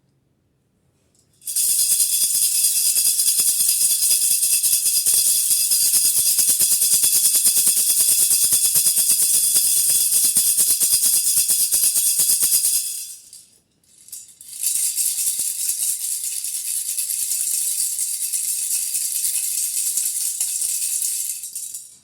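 Hand rattle shaken rapidly and continuously in two long spells, the first about eleven seconds and the second about seven seconds, with a brief pause between them.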